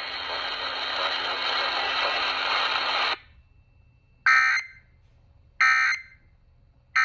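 Emergency Alert System end-of-message data tones: three short identical bursts of warbling digital tones about a second and a quarter apart, marking the end of the test broadcast. Before them a steady hiss runs for about three seconds and then cuts off abruptly.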